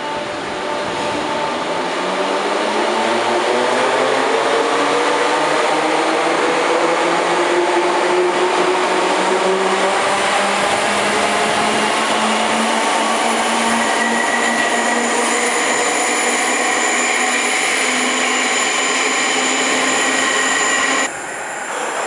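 A Merseyrail Class 507 electric train pulls out of an underground platform. The whine of its traction motors rises steadily in pitch as it accelerates, then runs at a steady pitch over loud wheel and rail noise as the carriages pass. About a second before the end the sound drops suddenly at a cut.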